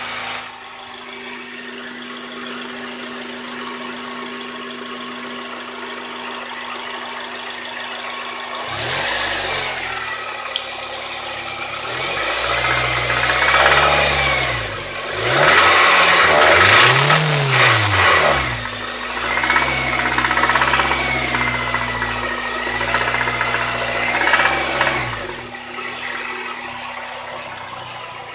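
Honda Civic Type R engine idling, then revved several times from about nine seconds in, the pitch rising and falling with each rev, and settling back to idle near the end. The owner reports the engine is knocking.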